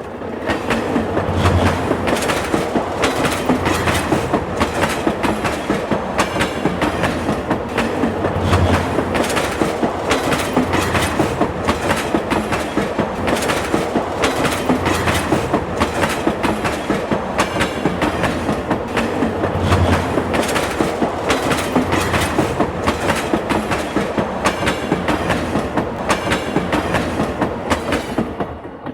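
Train passing along the track: a steady rumble with rapid clickety-clack of the wheels over rail joints and occasional low thuds, fading out near the end.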